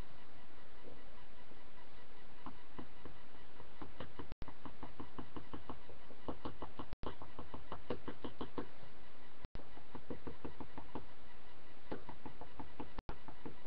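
Pencil scratching on paper in quick short strokes, coming in runs of several strokes a second over a steady hiss. The sound cuts out for an instant four times.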